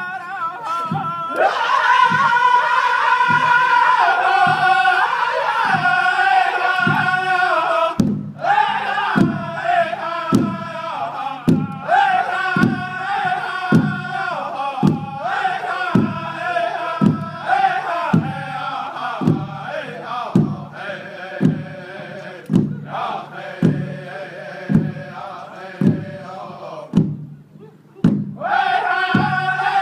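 Powwow drum group singing together around a single large drum, beating a steady pulse about twice a second under high, wavering group voices. The song breaks briefly between phrases, and the singing drops away for a moment near the end.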